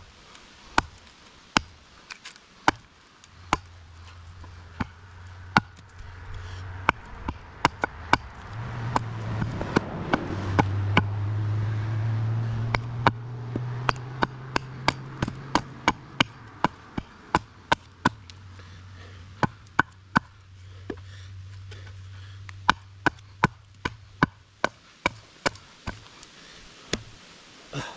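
Estwing hatchet chopping a notch into a green sapling pole propped on a stump: repeated sharp chops, one or two a second with short pauses, as the blade bites into the wood. A low steady drone runs underneath most of it, loudest in the middle.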